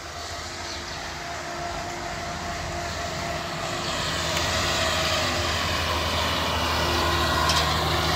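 Kubota DC-70 tracked combine harvester's engine running steadily, growing louder as the machine drives down steel ramps off a barge, with a clank near the end.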